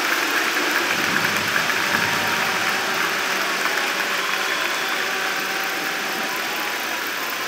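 A large audience applauding steadily, slowly dying down.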